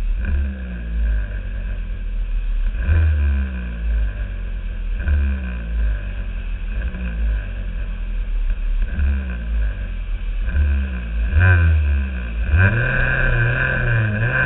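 Several two-stroke kart engines running and being revved in short bursts, roughly every two seconds. Near the end a nearby engine rises in pitch and then holds a steady note.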